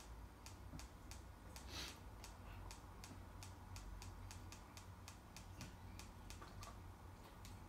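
Faint, quick clicking of buttons pressed again and again, about two to four clicks a second, as the TV guide is scrolled channel by channel.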